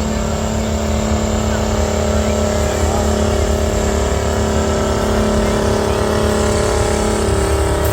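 Tractor engine running at a steady speed, a constant drone that holds one pitch throughout.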